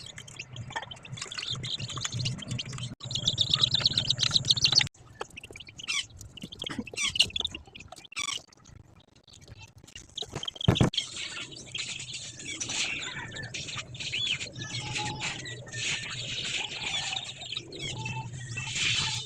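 Chicks peeping in rapid, high-pitched chirps, broken by abrupt cuts between short clips.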